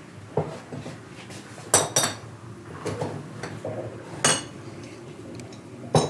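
Unglazed Yixing clay teapots clinking and knocking against one another as a hand moves among them on a shelf and picks one up. There are scattered sharp ceramic clinks, the loudest about two seconds and four seconds in.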